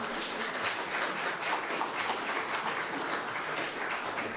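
Congregation applauding: many people clapping at once in a dense, steady patter.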